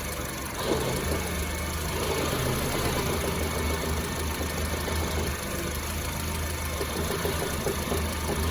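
Honda CR-V engine idling steadily, with light irregular knocks over it.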